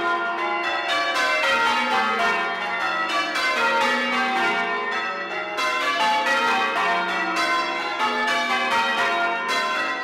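A ring of eight church bells hung for full-circle change ringing, being rung in a method: a steady, dense stream of overlapping bell strokes, each bell sounding in turn as the order of the bells changes.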